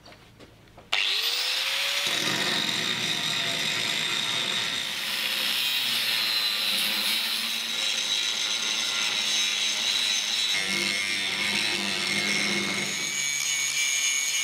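Angle grinder starting up about a second in, its pitch rising as it spins up, then grinding steadily with a worn, rounded-off disc, V-ing out a weld seam between steel plates.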